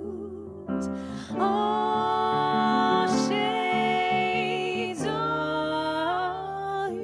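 Two women singing a slow jazz tune in harmony over piano accompaniment, holding long notes with vibrato; new phrases begin about a second in and again about five seconds in.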